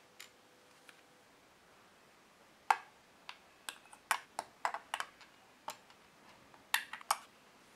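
Hard plastic model-kit parts being handled and set down on a tabletop, giving a run of sharp, irregular clicks and taps. The clicks start a few seconds in and bunch together near the end.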